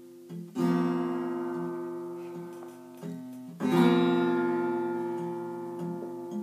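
Acoustic guitar strummed twice, about half a second in and again about three and a half seconds in, each chord ringing out and slowly fading, with a few lighter plucks on the strings before each strum.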